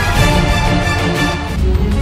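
Background music: sustained chords over a deep bass, the higher notes thinning and the bass swelling about one and a half seconds in.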